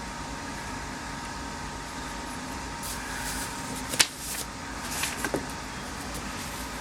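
Steady background hum with one sharp click about four seconds in and a few fainter clicks about a second later, from small parts being handled.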